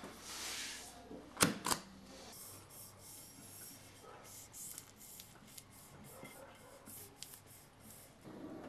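Self-adhesive beer labels being handled: a papery rasp as a label comes off its backing sheet, two sharp clicks about one and a half seconds in, then a run of short rubbing and brushing noises as the label is pressed and smoothed onto a glass beer bottle.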